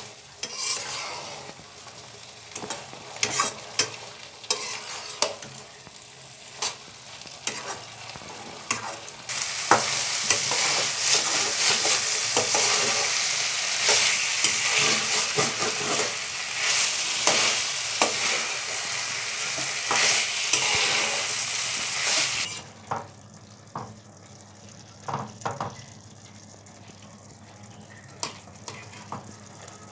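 Vegetables sizzling as they fry in a wok, stirred with a metal spatula that scrapes and taps against the pan. The sizzle grows much louder and hissier about a third of the way in and drops back abruptly about three-quarters through, leaving a quieter sizzle with the spatula's taps.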